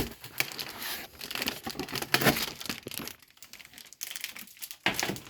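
Packaging being handled, crinkling and rustling in irregular crackles, quieter for a moment about three seconds in.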